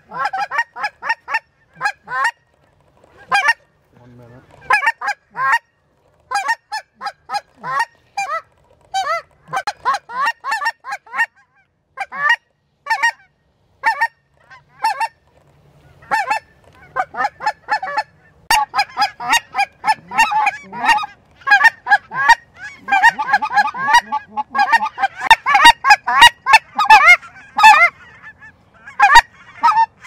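Geese honking, many short calls overlapping. The calls are sparse at first and become louder and denser in the second half.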